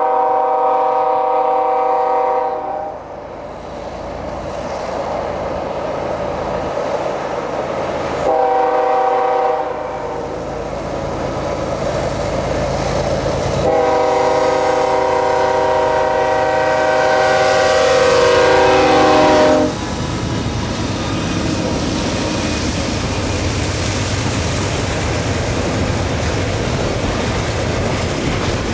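Freight locomotive air horn sounding three blasts for a grade crossing: a blast that stops about 3 seconds in, a short one around 8 seconds, and a long one from about 14 seconds that drops in pitch as the locomotives pass. After that comes the steady rumble and wheel clatter of the double-stack container cars rolling by.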